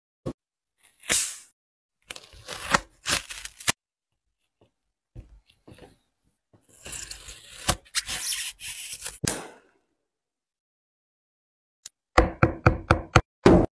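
Close handling and cutting sounds from a shoe being taken apart: sharp clicks and crinkling as the arch plate is bent, then a utility knife blade scraping and cutting through a foam insole pad. Near the end comes a quick run of knocks, several a second.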